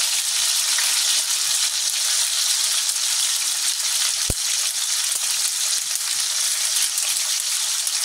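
Boneless chicken thighs frying in hot olive oil in a pan: a steady, even sizzle. A single short click about halfway through.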